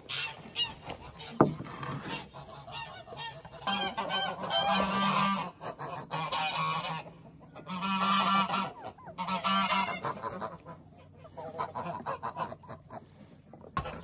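Domestic geese honking in repeated runs of calls, busiest through the middle of the stretch. A brief sharp sound, the loudest moment, comes about a second and a half in.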